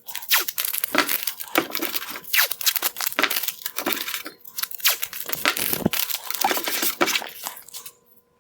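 Masking tape and paper being torn and crinkled as they are handled and pressed onto a plastic headlight lens: a dense, irregular run of crackles and tearing that stops shortly before the end.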